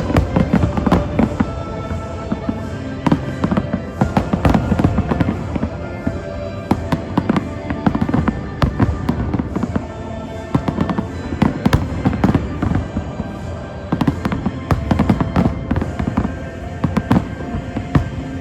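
Fireworks display going off densely: many sharp bangs in quick, irregular succession throughout, with the show's music playing underneath.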